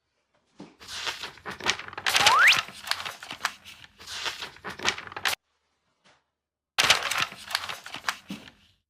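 Packaging being handled and torn open: plastic and cardboard crinkling and ripping in two stretches, each starting and stopping abruptly, with a brief rising squeak about two seconds in.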